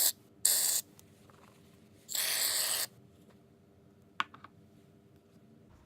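Aerosol can of shaving foam spraying in two short hissing bursts, one about half a second in and a longer one about two seconds in, then a faint click.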